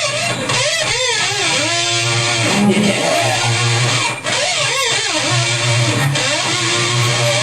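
Electric guitar played with repeated pitch slides up and down, about one swoop a second, over a held low note.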